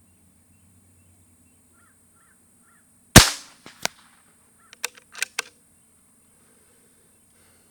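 A single shot from a Beeman QB Chief .22 PCP air rifle: one sharp crack with a short ringing tail, then a click a little over half a second later and a quick cluster of clicks about a second after that.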